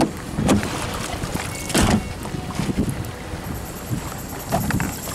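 Wind buffeting the microphone and water sloshing around the hulls of a small Hobie sailing trimaran, with several knocks and clatters of gear being handled in the cockpit.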